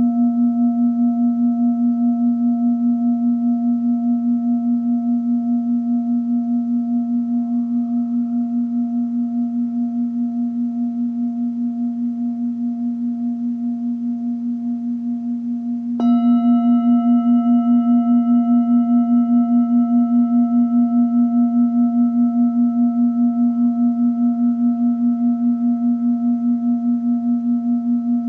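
Singing bowl ringing with a steady low hum and a few higher overtones, its loudness pulsing in a regular wavering beat. Just over halfway through, a bowl is struck sharply, bringing in bright new high overtones and a louder ring that then slowly fades.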